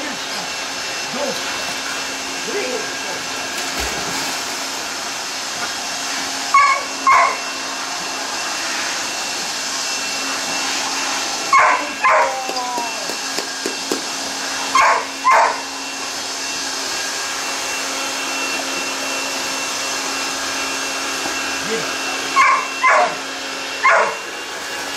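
A dog barking in pairs, two short barks about half a second apart, four times over, with one more bark near the end. A steady hum runs underneath.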